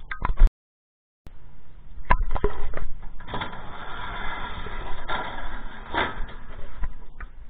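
Corrugated metal roll-up door of a storage unit being pushed open: a few sharp knocks, then about three seconds of rattling as the door rolls up, ending in a loud clunk about six seconds in.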